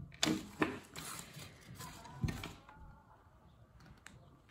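Construction paper strips being handled and rustled, with a few sharp clicks and knocks in the first two and a half seconds, then quieter.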